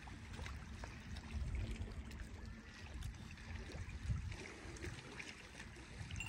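Small waves lapping against a rocky shoreline, with wind buffeting the microphone in an uneven low rumble.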